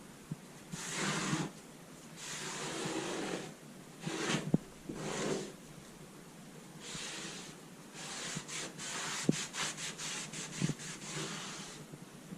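Repeated rubbing or scraping strokes of hand work, each lasting about half a second to a second. From about eight seconds in comes a quick run of sharp clicks.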